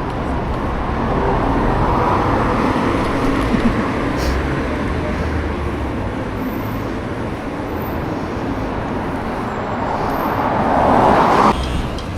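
Road and traffic noise while riding: a steady rushing haze with a low rumble. It swells shortly before the end, then drops off suddenly.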